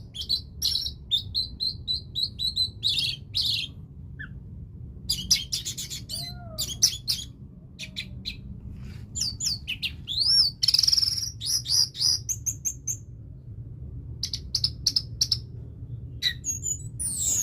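Orange-headed thrush (anis merah) singing a long, varied song of whistled phrases, rising and falling glides, fast repeated notes and clicking notes, with short pauses between bursts. A steady low hum runs underneath.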